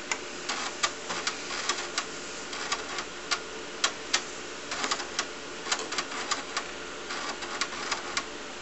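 TRS-80 Model 4P's floppy disk drive clicking irregularly, about two to three clicks a second, as its head steps while booting CP/M 2.2 from a floppy. A faint steady hum runs underneath.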